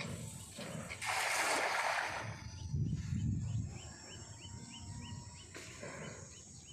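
A thrown cast net landing on the pond surface about a second in, a spread hissing splash lasting about a second. After it, a bird calls in a quick series of short rising chirps.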